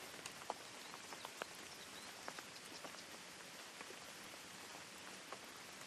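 White-noise ambience track: a steady hiss dotted with scattered light ticks, close to the sound of rain.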